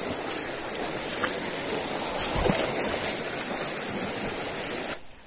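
Shallow, rocky mountain creek rushing steadily over stones, with a few faint knocks; it cuts off abruptly near the end.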